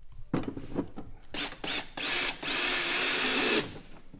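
Cordless drill/driver driving screws. There are a few knocks and short bursts of the motor first, then a longer run of about a second and a half, its whine rising as it spins up and then holding steady.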